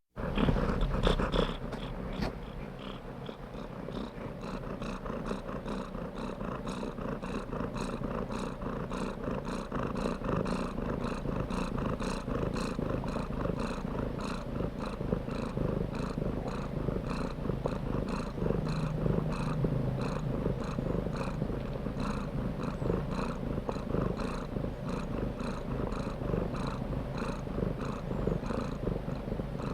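Domestic cat purring fast, a continuous rumbling purr that pulses in a steady, regular rhythm and is a little louder in the first second or two.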